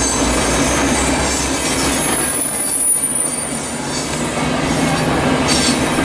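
V/Line VLocity diesel multiple unit passing close by: steady rumble of wheels running over the rails, with a thin high-pitched wheel squeal that fades out about halfway through.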